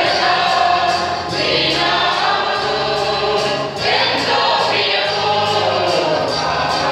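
Mixed choir of men and women singing a sacred song together, with a steady beat and low held bass notes underneath.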